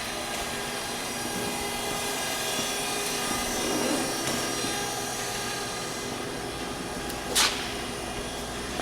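Kellenberger CNC cylindrical grinder running, a steady whirring hum with several steady whining tones from the spinning grinding wheel and work head. A short, sharp hiss cuts in about seven seconds in.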